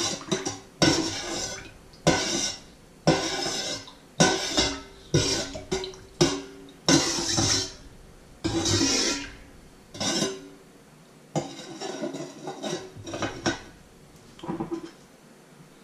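Small metal whisk scraping and clinking against a white enamel bowl as a thin liquid mixture is stirred, in irregular strokes roughly one every second. The strokes grow weaker after about ten seconds and stop near the end.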